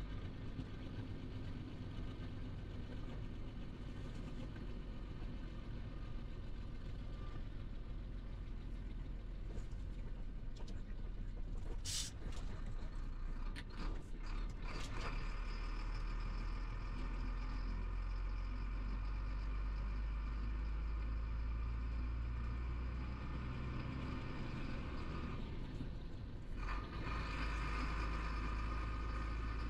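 Chenglong heavy truck's diesel engine running under way, heard from inside the cab. About midway there is a short air hiss and a few clicks as the gear lever is worked. Near the end the engine sound drops briefly and picks up again.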